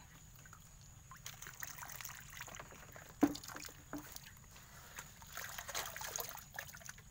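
Water dripping and sloshing as young eels are scooped from a bucket with a plastic basket and tipped into a pond among water hyacinth, with one sharp knock a little past halfway through.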